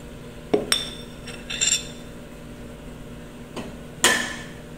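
A spoon and a ceramic plate clinking and knocking against the rim of a blender cup as kiwi slices are scraped in: about five sharp clinks with a brief ringing, the loudest near the end.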